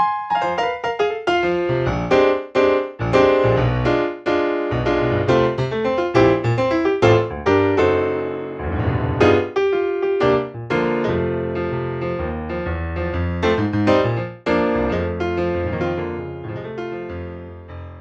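Sampled piano from a Kontakt library played on a keyboard: chords and melodic runs over held bass notes, dying away near the end.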